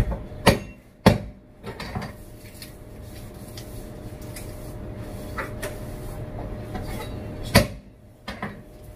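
Kitchen clatter from a rice cooker's inner pot being handled and wiped, a handful of sharp knocks and clunks. The loudest comes near the end as the pot is set down into the cooker. A steady faint hum runs underneath.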